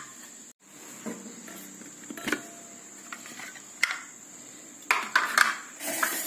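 Scattered clinks and knocks of a steel mixer-grinder jar and kitchen utensils being handled, several separate strikes a second or so apart, over a steady thin high-pitched whine. The grinder's motor is not running.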